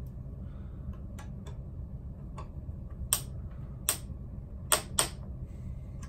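An Allen wrench clicking and tapping against the metal bolts and clamp of a motorcycle handlebar mount: a handful of sharp, irregularly spaced clicks over a steady low hum.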